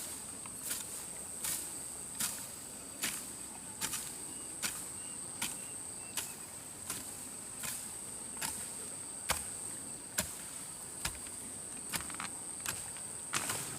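A hand tool chopping into grass and soil in a steady rhythm, about one stroke every three-quarters of a second, as weeds are cleared by hand. Under it runs a constant high-pitched insect drone.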